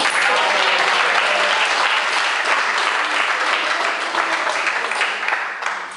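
Spectators clapping at the end of a table tennis rally, starting right after the last ball hits and fading out near the end.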